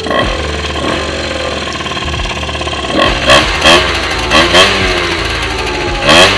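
SYM Jet scooter's two-stroke engine running at idle on its stand and being blipped: about five short revs in the second half, each rising and falling in pitch. It is being test-run with a newly fitted no-rev-limit GY6 CDI.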